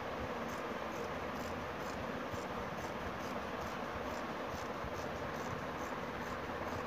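Scissors cutting through folded cotton check fabric, faint regular snips about three a second, over a steady background hiss.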